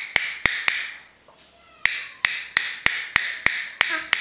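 A regular series of sharp snapping clicks, about three a second, with a pause of about a second early on.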